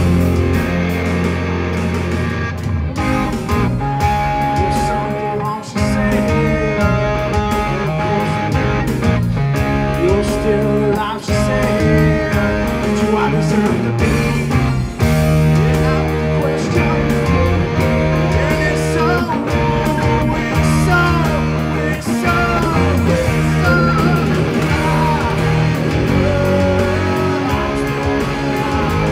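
Live rock band playing loudly: distorted electric guitars over bass and drums, with a man singing.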